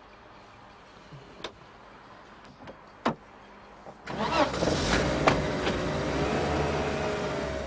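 Car engine running steadily as a sedan pulls away, entering loudly about four seconds in after a few faint clicks. A car door shuts with a knock just after the engine sound starts.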